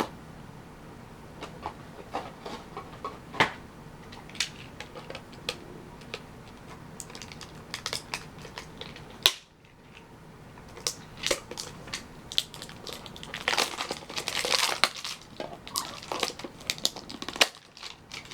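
Foil trading-card booster pack wrappers crinkling and tearing open, with scattered clicks and taps of handling. There is one sharp click about nine seconds in, and denser crinkling a few seconds later.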